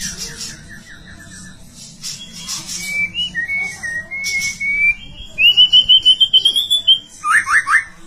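Female white-rumped shama (murai batu) singing a varied song: a fast trill of repeated notes, scratchy high chips, clear whistled notes, then a rapid warbling run, and four quick downward-sweeping notes near the end.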